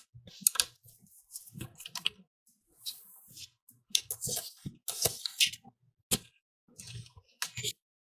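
Irregular clicks, taps and short scraping or rustling sounds as PC parts and their packaging are handled by hand.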